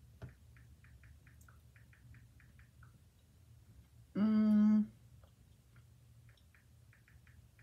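A woman's closed-mouth "mmm" hum about four seconds in, held briefly at one steady pitch, the loudest sound. Before and after it come runs of light quick taps, several a second.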